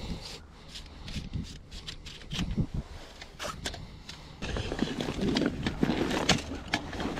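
A wooden ice-fishing tip-up being handled and folded up: a string of light clicks and knocks, then, about halfway through, louder scraping and rustling as it is laid against a fabric carry bag on the ice.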